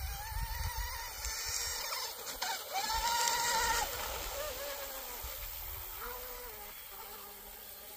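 Brushless electric motor of an RC outrigger boat whining as it runs across the water on a low 25C-rated lipo pack. Its pitch rises and falls with the throttle and is loudest and highest for about a second near the three-second mark, with a low wind rumble on the microphone underneath.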